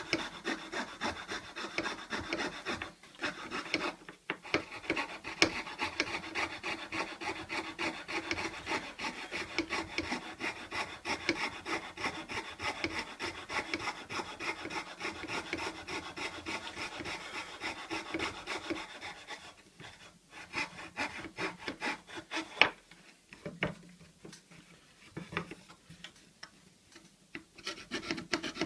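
Hand fretsaw cutting a thin wooden board, the fine blade rasping in fast, even strokes. About twenty seconds in the sawing breaks off, with one sharp knock, then goes on in shorter, quieter runs of strokes.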